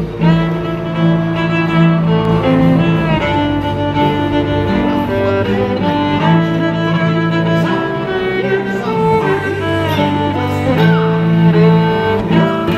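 Loud orchestral show music led by bowed strings, with held chords and a melody moving over them, playing continuously.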